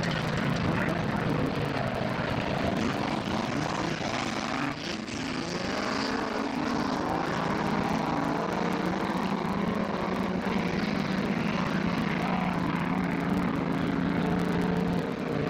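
Several autocross racing cars' engines running hard on a dirt track, a continuous engine drone that rises and falls in pitch as the cars accelerate and lift through the corners. The sound dips briefly about five seconds in.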